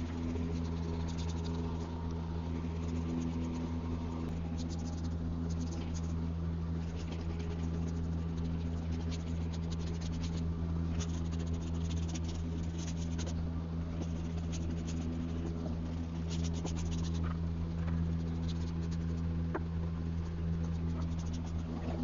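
Irregular scratchy strokes of a paintbrush on a wooden buffet as paint is brushed on, over a steady low hum.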